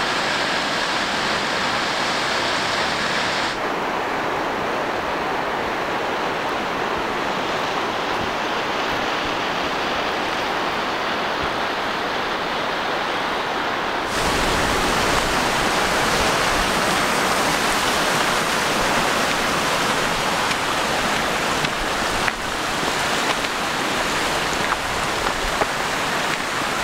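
Steady roar of a waterfall and rushing water. It changes in tone abruptly twice, a few seconds in and again about halfway through.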